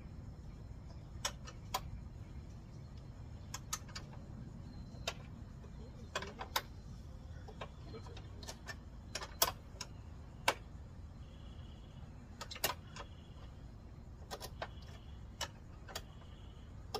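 Irregular sharp metal clicks and taps of a hand tool on bolts as a hood is fastened to its hinges, over a steady low rumble.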